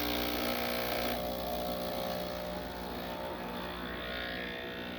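Breville Barista Express (870XL) espresso machine's pump buzzing steadily as it pulls a double shot under good pressure.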